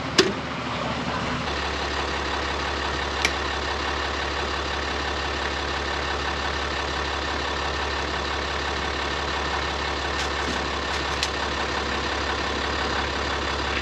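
A truck engine idling steadily. Its low hum comes in about a second and a half in, with a few sharp clicks over it. The truck is being run to jump-charge the dead batteries of a Kenworth semi.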